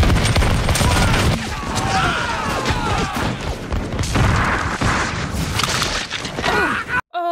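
Movie battle soundtrack: volleys of flintlock musket fire and heavy booms under men shouting. It cuts off suddenly near the end.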